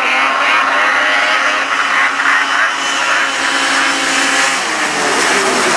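Two racing snowmobile engines running hard at high revs as the sleds accelerate up a snow slope, a loud, steady engine whine.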